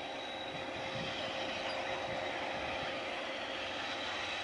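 GE AC44i diesel-electric locomotive running as it approaches at low speed around a curve, pulling its train: a steady, unbroken engine and rolling-train noise, with a thin steady high tone above it.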